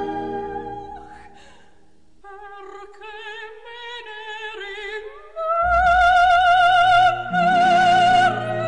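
Music with a wordless operatic voice singing long notes with wide vibrato; after a quiet dip early on, the voice rises and a fuller, louder accompaniment comes in about two-thirds of the way through.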